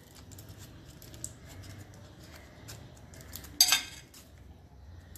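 Paper cupcake liner crinkling and rustling as it is peeled off a cupcake by hand, with one louder short crackle about three and a half seconds in.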